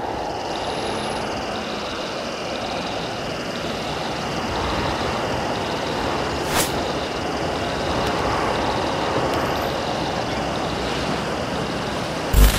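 Steady distant traffic noise, with a high, evenly pulsing chirr held over it. A single sharp click comes about halfway, and loud low thumps right at the end.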